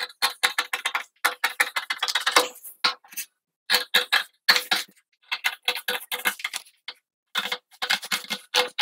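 Scissors cutting through a paper blouse pattern: runs of quick, crisp snips, several a second, broken by short pauses.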